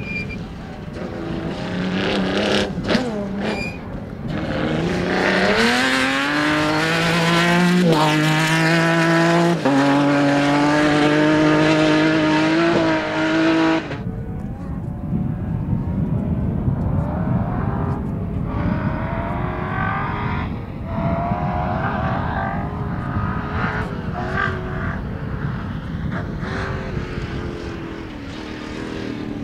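Rally cars at full speed on a special stage. First an engine revs hard, its pitch climbing and then held high with small drops at gear changes. About halfway through the sound cuts off suddenly and a second car is heard further off, its engine rising and falling as it races across the field.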